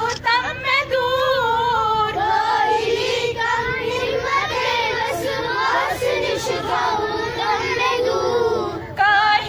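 Schoolchildren and women teachers singing a prayer together, led by a woman's voice over a microphone and loudspeaker, with a brief break just before the end.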